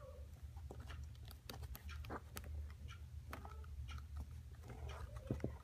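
Faint scattered clicks and scrapes of a micro USB plug being fumbled against the connector on a wireless charger circuit board, with fingers handling the plastic case, over a low steady hum.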